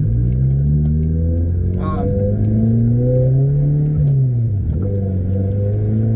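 Turbocharged Toyota Starlet engine accelerating, heard from inside the cabin: its pitch climbs steadily, drops at a gear change about four and a half seconds in, then climbs again under boost. A brief high chirp sounds about two seconds in.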